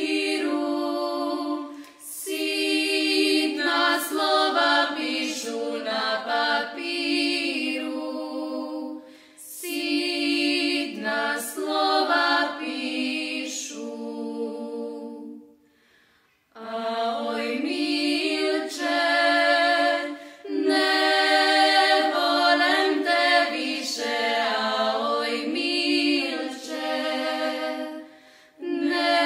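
Women's vocal group singing a traditional Banat folk song unaccompanied, in sung phrases several seconds long separated by short breaks, with a longer pause of about a second midway.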